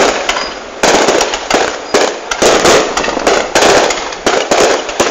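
Fireworks going off: loud, sharp bangs and dense crackling in clusters that come about once a second.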